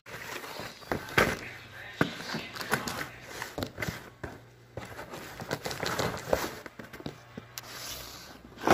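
Cardboard shipping box being handled and opened by hand: irregular scrapes, rustles and knocks of the cardboard.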